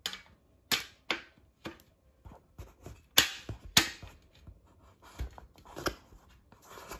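Steel shelving beam being fitted to a slotted steel post: a series of sharp metal clicks and clanks as the beam's end studs are pushed into the post's keyhole holes and slid down to seat, the loudest pair about halfway through.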